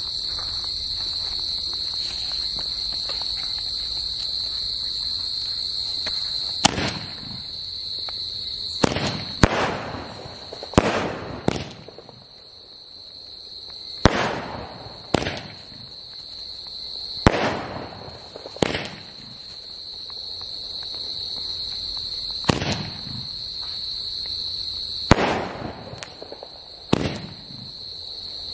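Small aerial firework shots going off one after another: about a dozen sharp pops with short rushing whooshes, spaced one to a few seconds apart, starting about seven seconds in. Crickets chirr steadily throughout.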